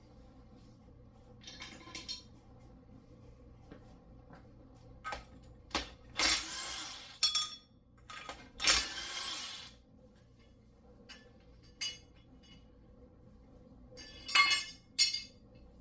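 Metal tools and engine parts clinking and knocking while parts are unbolted from an engine: scattered sharp clinks, two louder rattling bursts of about a second each in the middle, and a quick cluster of clinks near the end.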